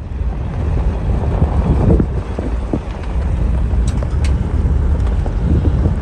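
A vehicle running with a loud, steady low rumble and a few scattered knocks.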